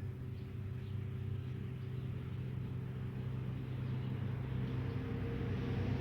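A motor running with a steady low hum that grows slightly louder, with a hiss rising toward the end.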